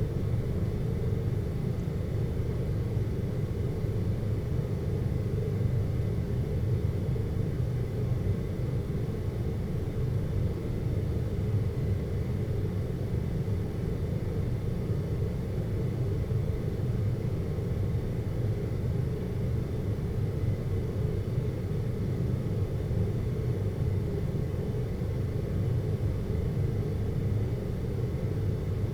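Ambient hum noise for sleep: a steady, unchanging low rumble with its weight deep in the bass and little above it.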